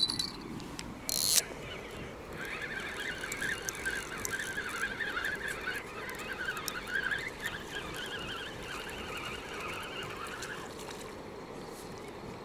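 Spinning reel cranked steadily, its gears whirring as the line is wound in to retrieve a catfish bottom rig. The whirr runs for about eight seconds and stops near the end, after a click at the start and a short rush about a second in.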